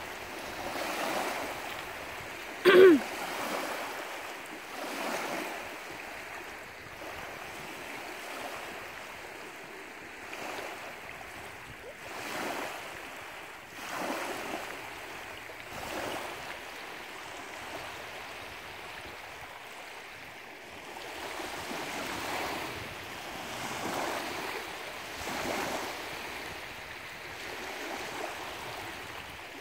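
Small lake waves lapping and washing onto a gravel shore, rising and falling every couple of seconds, with wind. About three seconds in there is a brief, loud sound that falls in pitch.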